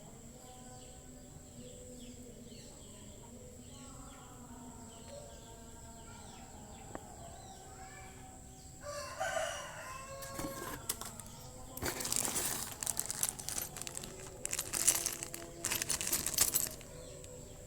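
Faint bird chirps, then a pitched crowing-like call about nine seconds in. Several seconds of loud, broken bursts of rustling noise follow and stop shortly before the end.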